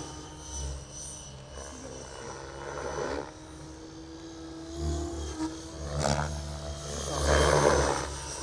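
Radio-controlled model helicopter in flight, its rotor noise swelling and fading several times as it manoeuvres.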